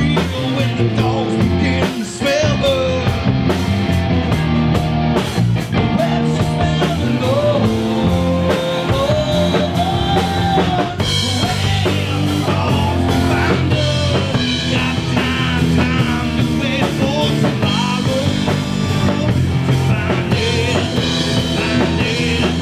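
A rock band playing live: a drum kit keeping a steady beat, electric bass, electric guitar and a male singer on the microphone.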